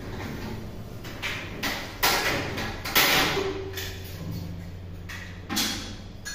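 Clunks, knocks and scrapes of an aluminium shower-enclosure frame and panels being fitted, about one every second, over a steady low hum.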